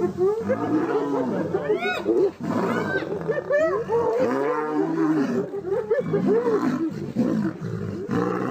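Wild animals fighting: many overlapping calls that arch up and down in pitch, with several sharp, high, rising calls among them.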